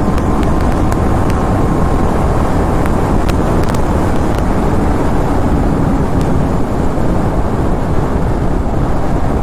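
Motorcycle riding at steady speed: loud wind rush and road noise over the rider's microphone, with the TVS Apache RR 310's single-cylinder engine running underneath as a faint steady tone.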